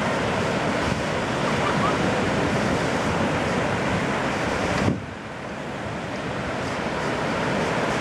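Ocean surf breaking on a beach: a steady rush of waves with wind on the microphone. About five seconds in the noise drops suddenly, then builds back up over the next couple of seconds.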